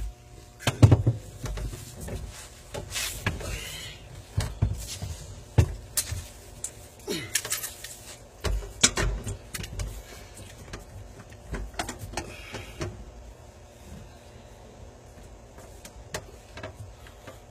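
Irregular knocks, clicks and scraping from hands fitting a food waste disposal onto its mount under a sink, with the sharpest knock about a second in.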